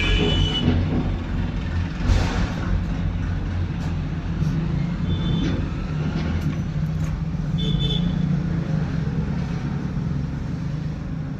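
Steady road traffic rumble from passing vehicles, with three short horn beeps: one at the start, one about five seconds in and one about eight seconds in.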